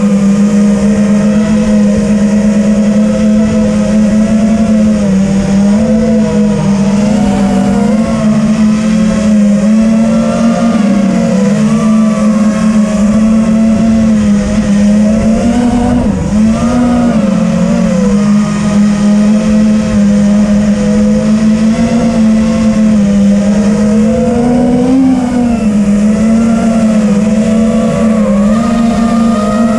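TBS Vendetta racing quadcopter's brushless motors and propellers whining steadily, the pitch wavering up and down as the throttle changes.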